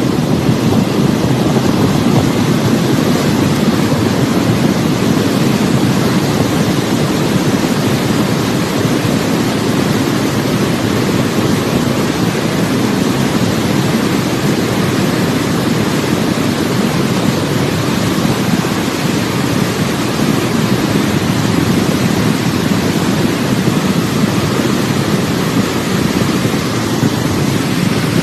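Flash-flood water rushing, a loud, steady, unbroken roar of churning water.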